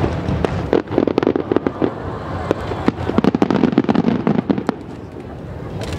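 Aerial fireworks going off in a rapid string of sharp bangs and crackles over a continuous rumble, thinning out about four and a half seconds in, with one last sharp report near the end.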